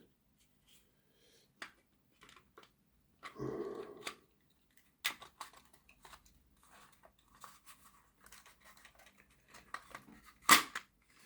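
Light clicks and rustles of small plastic model-railway parts being handled as a locomotive body shell is fitted back over its chassis, with a sharper click about ten and a half seconds in.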